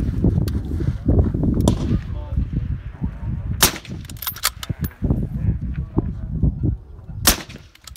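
Two shots from a scoped precision rifle, one a little over a third of the way in and the second near the end, under four seconds apart, each a sharp crack.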